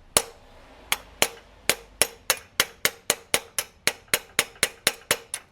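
Steel hammer blows driving a pry bar into the joint of a stuck aluminum thermostat housing to break it loose: about eighteen sharp metallic strikes with a short ring, quickening from about one a second to about four a second.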